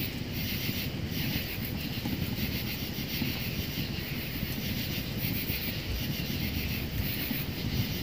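Wood fire burning in a titanium tent stove: a steady low rumble with a hiss over it.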